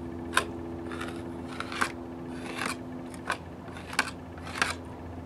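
Bondo body filler being scraped and smoothed onto termite-damaged wood in about seven short strokes, a little under a second apart.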